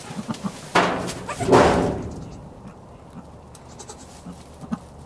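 Nigerian Dwarf goat bleating twice in quick succession about a second in, the second call louder.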